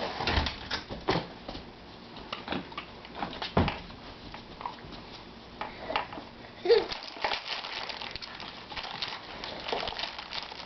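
Baby handling a plastic baby-wipes package: irregular crinkles, taps and clicks of the plastic, coming thicker in the second half.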